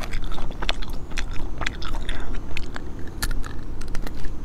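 Close-miked eating: lip smacks, nibbling and chewing, with many quick sharp clicks as small pieces of spicy braised food are bitten and picked at by hand.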